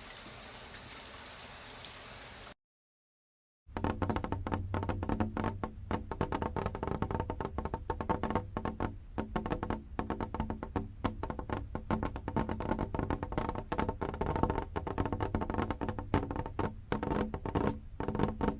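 Soft steady rain hiss that cuts off about two and a half seconds in. After a second of dead silence a louder track starts: dense rapid patter and crackle over several held low tones, with a musical character.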